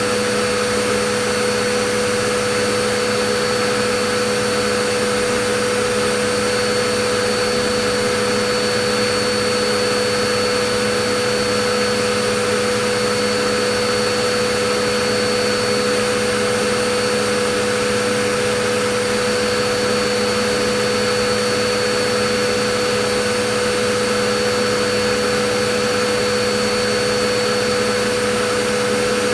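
Vacuum cleaner running steadily, its motor hum and air rush holding a constant pitch with no change.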